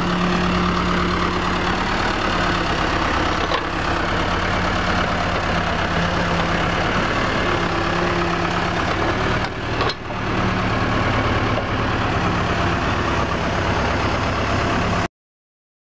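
Backhoe loader's diesel engine running steadily while it digs. The sound cuts off suddenly near the end.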